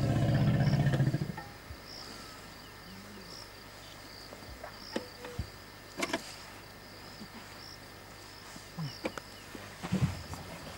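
Insects chirping steadily in the background in a short repeating high pattern, with a few scattered short knocks. A loud, low pulsing drone cuts off about a second in.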